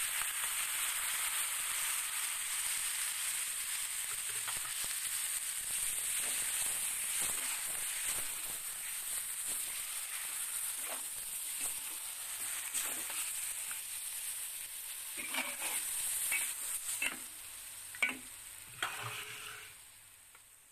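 Spice paste sizzling in hot oil in a wok as it goes in on top of frying pork cubes and is stirred through with a metal spatula. A steady sizzle fades gradually, and several sharp knocks of the spatula against the wok come near the end.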